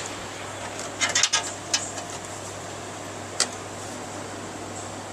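Handling of front panel connector cables inside a PC case: a quick cluster of sharp clicks and rattles about a second in, then single clicks, over a steady background hum.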